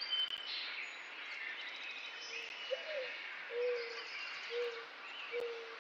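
Countryside bird ambience: many small birds chirping and whistling, with four low, evenly spaced hoots starting about halfway through. The first hoot rises and falls.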